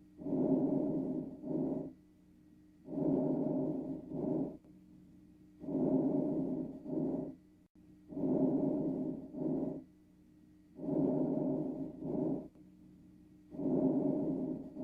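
Recorded lung breath sounds heard through a stethoscope: six even breath cycles, each a longer breath in followed by a short breath out, with a faint steady hum underneath.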